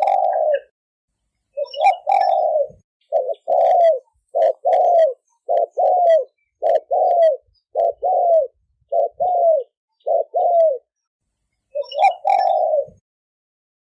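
Spotted dove cooing: a longer coo phrase at the start and again about 2 s in, then a quick run of short coos with falling ends, about one every 0.7 s, and another long phrase near the end. This is the 'thổ kim' style of cu gáy cooing, used as a lure call to draw wild doves.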